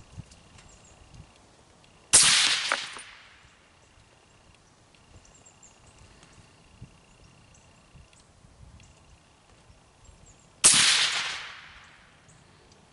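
Two shots from a suppressed 7.62×51 NATO XM25 sniper rifle, about eight and a half seconds apart. Each is a sharp crack that fades away over about a second.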